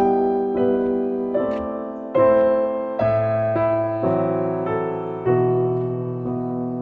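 Background piano music: a slow piece of struck notes and chords that ring and fade, a new one about every second.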